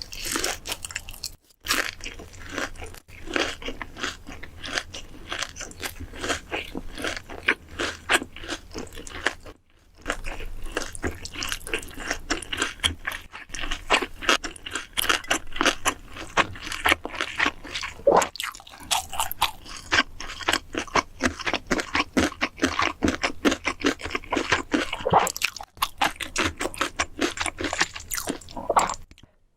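Close-miked eating: rapid, crisp crunching as crunchy food is bitten and chewed, with a couple of brief pauses.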